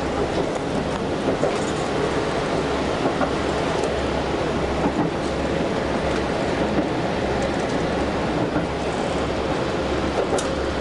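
Cabin noise inside a KiHa 185 series diesel railcar: a steady low drone and rumble, with a few faint clicks now and then.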